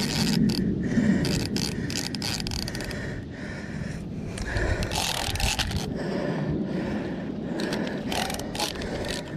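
A large spinning fishing reel being cranked hard against a heavy fish on the line: irregular mechanical scraping and grinding from the reel, in uneven strokes.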